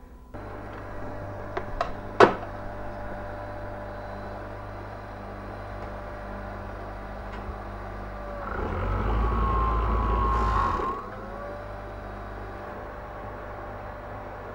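Industrial overlock sewing machine: its motor hums steadily, with a sharp click about two seconds in. From about eight and a half to eleven seconds it sews a louder burst of stitching, with a whine that dips and rises, then drops back to the steady hum.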